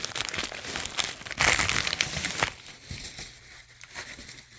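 Plastic packaging crinkling and rustling as it is pulled at by hand, the packaging resisting. Loudest about a second and a half in, then dying down.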